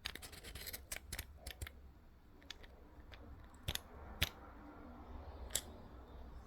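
Light, irregular clicks and taps of snap ring pliers and small flashlight parts being handled: several quick ones in the first two seconds, then single sharper clicks a few seconds in.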